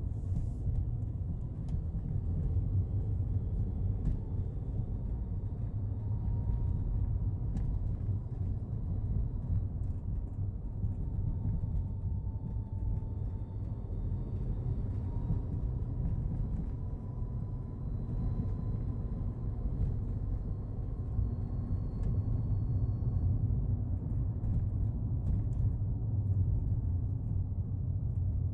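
Daihatsu Hijet Cargo van running steadily: a low rumble with a faint whine that drifts slightly in pitch.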